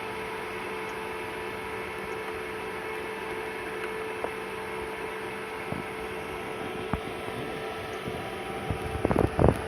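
Arctic Air portable evaporative cooler's fan running with a steady whir and hum, with a few light knocks near the end.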